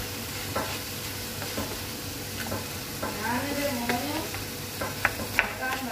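Wooden spatula stirring and scraping chicken and mixed vegetables in a stainless steel pan, the food sizzling steadily over a gas flame. The spatula knocks and scrapes against the pan every second or so.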